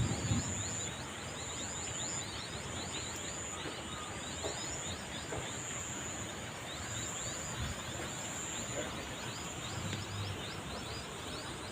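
Rural outdoor ambience: a steady high insect trill that pulses in and out, with many quick rising high chirps, over an even background hiss.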